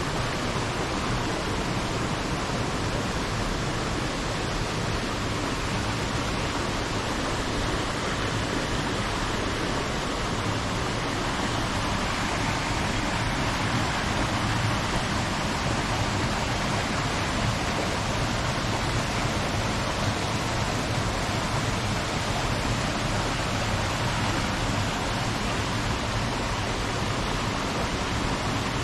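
Steady rushing of water, an even roar with no break.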